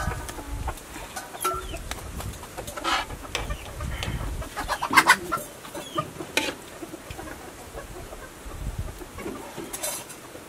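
Chickens clucking, with a spoon knocking and scraping against a large cooking pot as greens are stirred.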